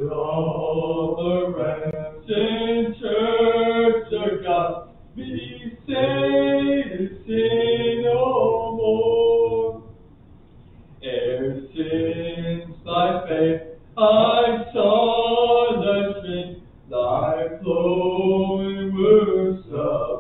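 A man preaching, his voice in long phrases with a clear pause about ten seconds in.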